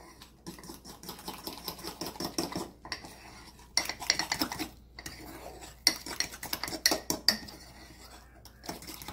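Metal spoon stirring thick mug-cake batter in an enamel mug, scraping and clinking against the mug's sides in quick runs. The busiest clinking comes about four seconds in and again around six to seven seconds in.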